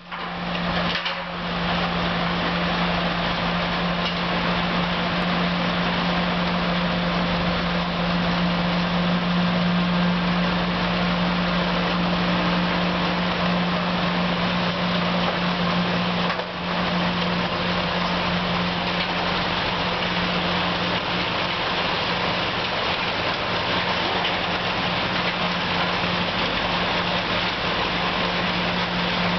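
Snowblower and dump-truck engines of a snow-removal convoy running steadily, a loud continuous drone with a strong low hum, as the blower throws snow into the truck.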